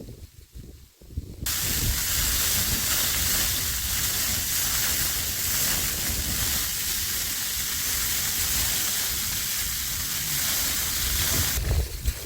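Wind-driven snow hissing steadily against the tent. It starts abruptly about a second and a half in and drops off sharply near the end.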